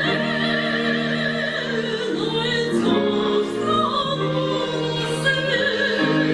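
A woman singing in a classical, operatic style with a wide vibrato, over orchestral accompaniment with strings.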